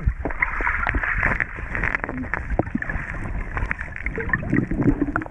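River water heard from underwater through a submerged action camera: a muffled, churning rush with gurgling and many small clicks and knocks.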